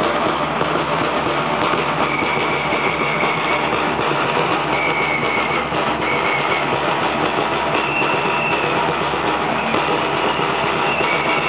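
Steady, dense drumming from the drummers who accompany a Romanian bear dance, with several short high whistle notes over it.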